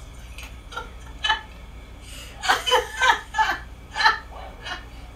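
A woman wheezing with laughter, in short breathy bursts with a run of quick pulses in the middle.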